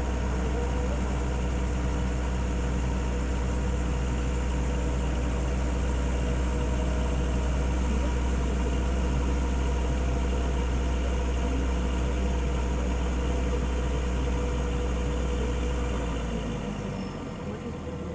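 Volvo C30's turbocharged straight-five engine idling steadily just after a cold start, through its stock exhaust, with a faint turbo whine. The low rumble drops away near the end.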